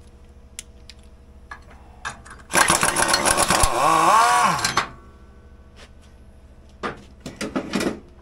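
Impact wrench rattling for about two seconds as it spins the puller bolt out of the removed snowmobile clutch, its motor pitch rising and falling near the end. A few short metal clinks follow as the clutch is handled.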